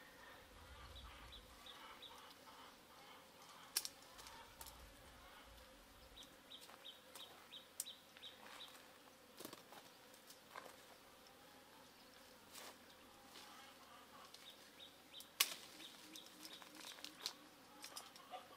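Sharp snips of hand shears cutting, a dozen or so at irregular intervals, against a very quiet background with short runs of faint, high-pitched chirping.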